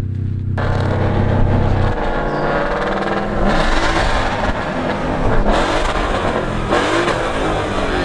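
Sports car engines at close range: a steady low engine drone for the first two seconds, then revving with pitch rising and falling, the sound changing abruptly a few times.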